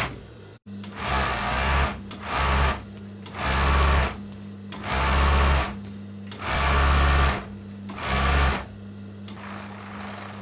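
Jack four-thread overlock (serger) machine stitching a fabric edge in six short bursts of running, stopping and starting between them. A steady low hum continues through the pauses.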